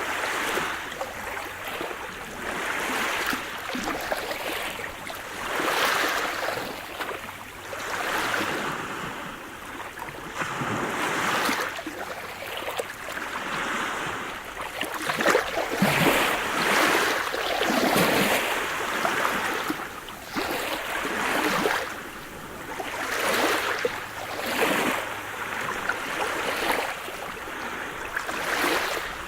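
Sea surf: waves breaking and washing up the shore, a hiss that swells and falls back every couple of seconds, with the loudest surges about halfway through.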